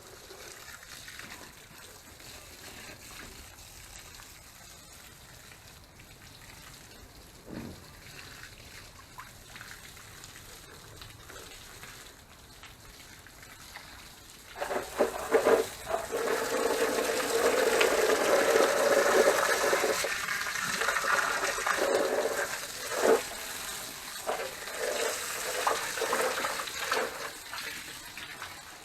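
Water pouring and splashing onto garden plants as they are watered. It starts about halfway through, after a stretch of faint background noise, and runs on loudly and unevenly.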